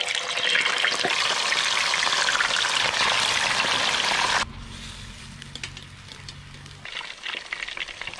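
Whole menpachi frying in hot oil in a pan, the oil sizzling loudly as the fish go in. About four and a half seconds in, it drops suddenly to a quieter sizzle.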